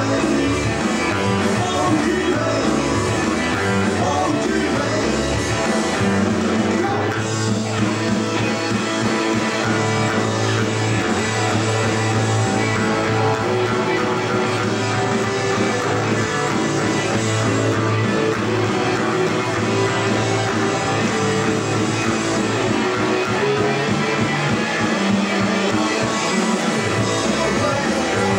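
A live rock band playing a British beat-style song: electric guitar, bass guitar and drum kit, with the lead singer's voice at times.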